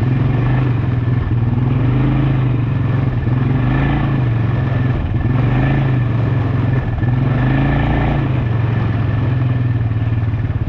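Quad bike engine running under load while riding, its pitch rising and falling with the throttle.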